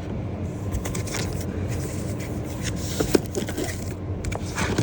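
A few light clicks and knocks of insulated hand tools being handled and lifted out of their case, over a steady low background rumble.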